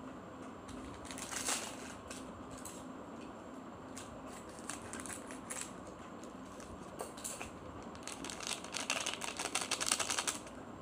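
Seasoning sachets from a Maggi Pedas Giler instant-noodle pack being handled and torn open: scattered crinkles and rustles, then a dense run of rapid crackling near the end as a sachet is torn and squeezed.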